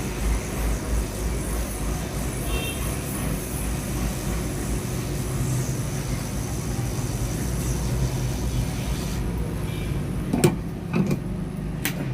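Hot air rework station blowing steadily on a phone's circuit board to heat off the charging jack. About nine seconds in the airflow hiss drops away, and a few sharp clicks follow.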